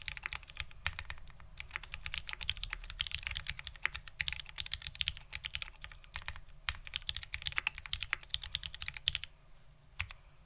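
Fast typing on a custom 60% mechanical keyboard with vintage Cherry Black linear switches (spring-swapped) on a POM plate, under ABS doubleshot keycaps: dense, rapid key clacks in bursts. The typing stops about nine seconds in, with one last key press about a second later.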